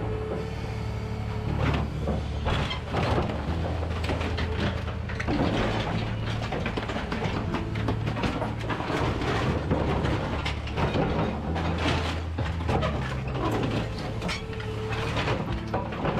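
Excavator's diesel engine running under hydraulic load while the machine tears apart an aluminium semi-trailer, with repeated irregular clanks, scrapes and creaks of the trailer's metal being bent and ripped.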